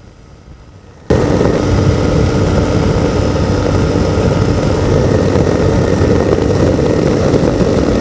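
Ultralight's two-stroke Hirth 3202 engine and propeller running steadily in flight: a loud drone mixed with wind rush. It cuts in abruptly about a second in after a quiet, low hum.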